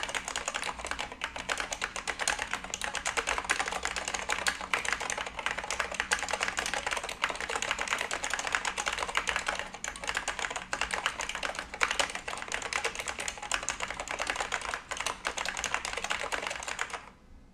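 Fast, continuous typing on a Reudo Rboard Pro for Mac keyboard with Alps SKCL Yellow linear switches: a dense run of rapid keystrokes that stops suddenly near the end.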